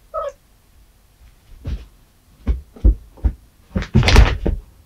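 Siamese cat playing and pouncing on a carpeted floor: a short chirp right at the start, then a run of thumps from its paws and body, the loudest and densest cluster near the end as it lunges forward.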